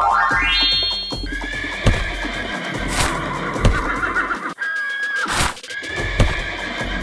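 Cartoon soundtrack: a quick rising run of notes, then high wavering, whinny-like cries over background music, with a few short knocks.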